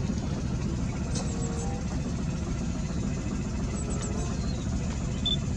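A steady, even low rumble like a small motor running, unchanging in level throughout.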